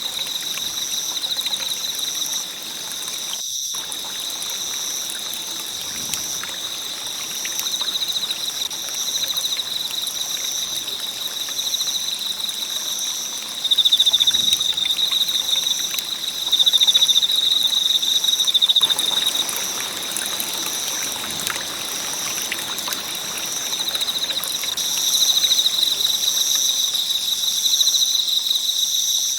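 Crickets or similar insects chirping steadily in pulsing high-pitched trains over the soft hiss and faint crackle of a campfire.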